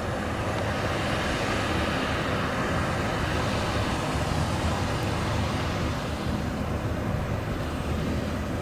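Tractor pulling a round baler through straw, its engine and the baler running steadily.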